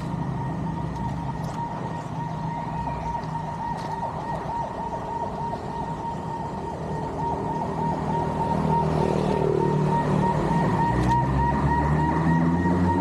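An engine running with a steady high whine, its pitch rising and getting louder from about two thirds of the way in.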